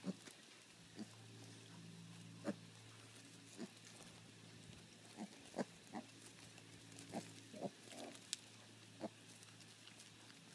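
Young piglets grunting quietly as they root about, a dozen or so short grunts at irregular intervals.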